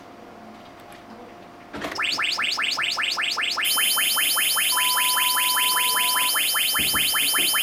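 Test tones from a circuit board's speaker running test firmware: about two seconds in, a rapid train of repeating chirps, about five a second, starts suddenly and loudly, and a steady high tone joins it about halfway through, with a lower tone sounding alongside for about a second and a half. This is the board's normal sound level.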